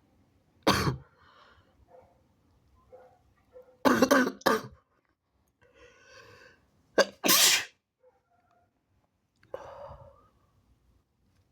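A person sneezing repeatedly in sharp, sudden bursts: one about a second in, a quick double sneeze about four seconds in, another after a short drawn-in lead-up around seven seconds, and a weaker one near the end.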